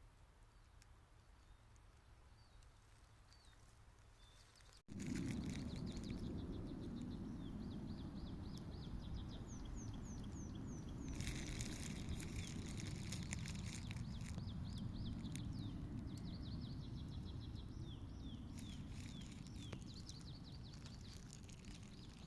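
Birds chirping outdoors, faint at first, then after a sudden cut about five seconds in, rapid runs of short, high, falling chirps over a steady low outdoor rumble. A louder hiss comes in twice.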